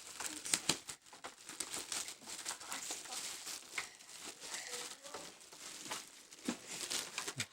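Packaging rustling and crinkling, with irregular small clicks and rattles, as speaker parts are lifted out of their box and unwrapped.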